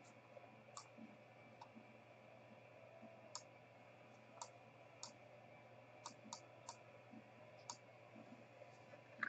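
Near silence broken by faint, irregular clicks of a computer mouse, about a dozen spread unevenly over several seconds.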